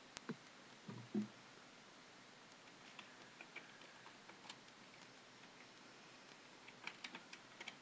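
Faint computer keyboard keystrokes: scattered soft clicks over quiet room tone, with a sharper click at the start and a brief low thump about a second in.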